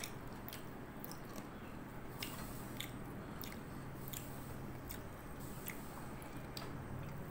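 A person eating with their hands, chewing a mouthful of rice and fish paste. Soft wet mouth clicks and smacks come about once or twice a second over a faint steady hum.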